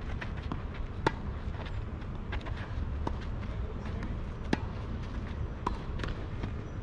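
Tennis rally on a clay court: two sharp, loud racket hits on the ball, about a second in and about four and a half seconds in, with fainter hits and ball bounces between them, over a steady low rumble.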